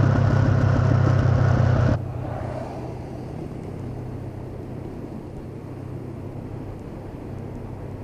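Honda CB500X's parallel-twin engine running steadily while riding, loud for about two seconds, then cutting abruptly to a quieter, steady engine hum with road and wind noise.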